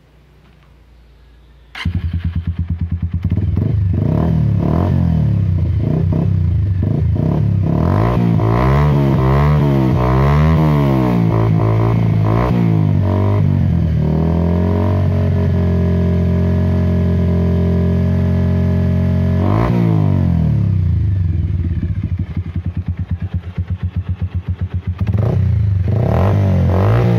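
Bajaj Pulsar 150's single-cylinder four-stroke engine breathing through a Yoshimura aftermarket exhaust. It starts about two seconds in and idles, then revs in a run of quick throttle blips. It holds a steady higher rev for several seconds, gives one sharp blip, and settles back to idle.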